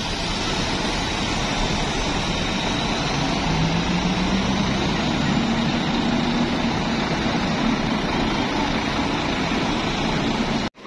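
Bus engine running under a steady wash of vehicle noise. Its low hum rises slightly in pitch about four seconds in and then holds steady, and the sound cuts off abruptly near the end.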